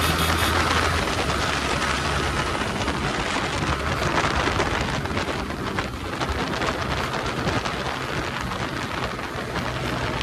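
Wind rushing over the microphone of a moving motorcycle at road speed, a steady loud hiss. The bike's engine hums underneath, clearest in the first second and again near the end.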